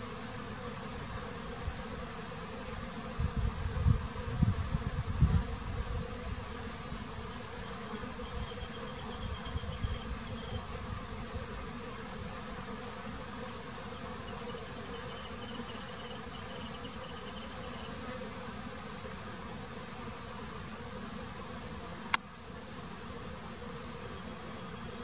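Honeybees buzzing steadily around their hive, with a high insect trill pulsing about once a second. Low rumbles come a few seconds in, and there is a single sharp click near the end.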